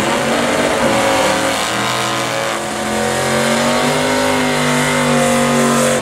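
Gasser drag car's engine revving high and held during a burnout, rear tires spinning in smoke. The pitch sags briefly about two and a half seconds in, then climbs back.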